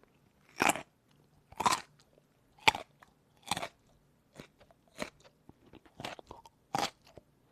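Crunchy food being bitten and chewed: a sharp crunch about once a second at first, then smaller, quicker crunches.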